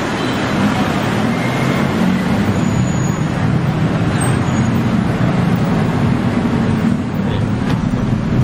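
Steady rumble of road traffic, cars and engines passing close by.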